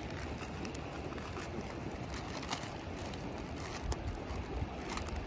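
Steady rush of flowing river water, with a few light clicks.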